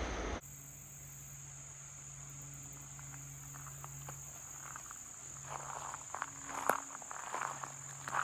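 Steady high chirring of crickets and other insects, with footsteps beginning about halfway through. A loud rushing noise cuts off just after the start.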